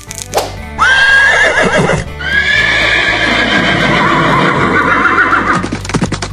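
A horse whinnying: a short neigh about a second in, then a longer one with a wavering, shaking pitch, followed near the end by quick clip-clopping hoofbeats. Background music plays underneath.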